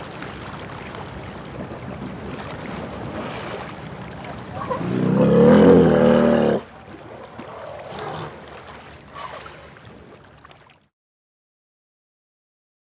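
An elephant gives a loud, low, rumbling call for about two seconds that cuts off abruptly, over a steady background of wind and engine-like noise. The sound then drops out to silence near the end.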